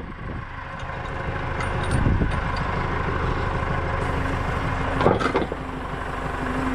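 Tractor engine running under load while it works the hydraulics of a tractor-mounted post banger, growing louder over the first couple of seconds as the driving weight is lifted off the post. A steady tone comes in about four seconds in, and there is one sharp metallic knock about five seconds in.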